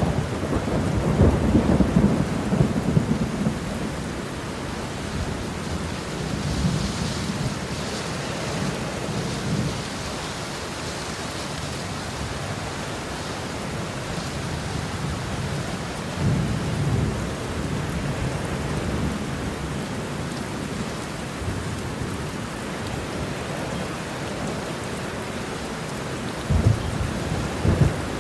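Steady heavy rain with rolling thunder rumbling several times, loudest near the start and again near the end.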